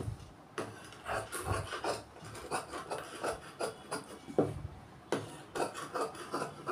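Tailor's scissors cutting through blouse fabric: a run of short crisp snips, about three a second, with the cloth rustling as it is handled.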